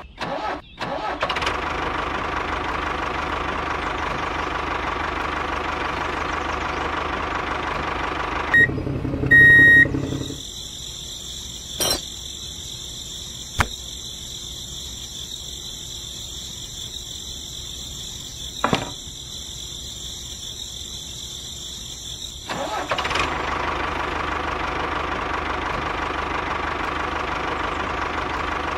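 Engine of a miniature two-wheel tractor model running steadily. About eight seconds in the running stops, with a short loud burst, and for some twelve seconds only a high steady whine and a few sharp clicks are heard; the engine sound comes back about twenty-three seconds in.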